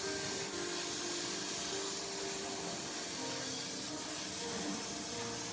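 CNC laser machine running: a steady hiss of air with faint short tones that shift in pitch every fraction of a second.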